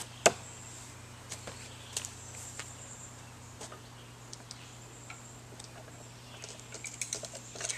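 A thrown screwdriver strikes the wooden log target with one sharp knock about a quarter of a second in. Footsteps and scattered small knocks and clinks follow as the screwdrivers are pulled from the wood, with a cluster of them near the end, over a steady high insect buzz.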